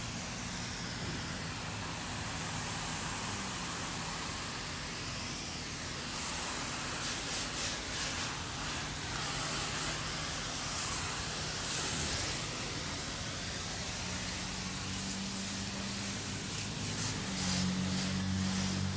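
Self-serve car wash pressure wand spraying spot-free rinse water onto a car's body panels: a steady hiss of the water jet, with a low steady hum underneath that grows louder near the end.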